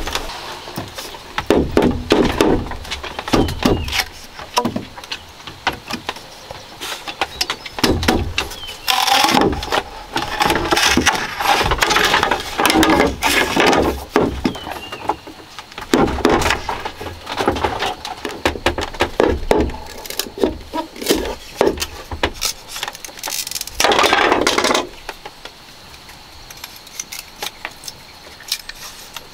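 A large knife cutting and splitting a green bamboo tube: many sharp knocks of the blade striking the bamboo, with a few longer rasping stretches of about a second as the stalk is split lengthwise. Quieter in the last few seconds as the split strips are handled.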